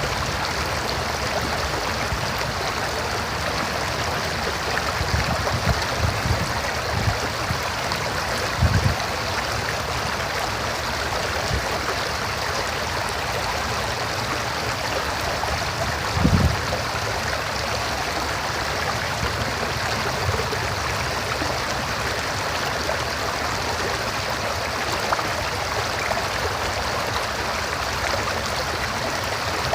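River water rushing and gurgling steadily over rocks. A few brief low thumps come about a third of the way in and again past the middle.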